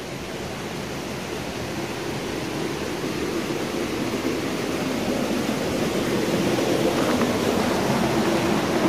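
A steady rushing noise with no clear tone or beat, growing slowly louder.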